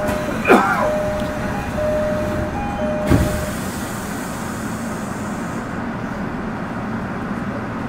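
Tokyo Metro Ginza Line 1000-series subway train running, heard from inside the car: a steady running noise. In the first three seconds a few short steady tones and brief squeals sound over it.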